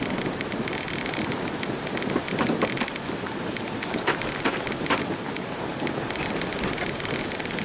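Jeep Cherokee XJ driving along a rough dirt track: steady rumble of tyres and wind with constant rattling over the bumps, and a few sharper knocks about two, four and five seconds in.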